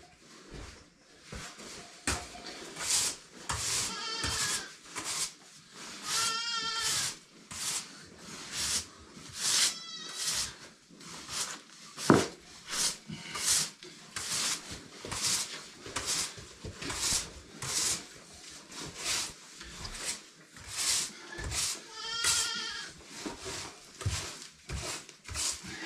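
Young goat kids bleating several times, high and wavering. Between the bleats comes a steady run of rough rustling strokes, with one sharp knock about twelve seconds in.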